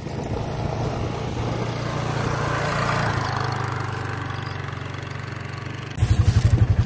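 Hisun Sector UTV engine running, swelling to its loudest about three seconds in and then easing off. About six seconds in, a louder engine with a fast, even throb takes over.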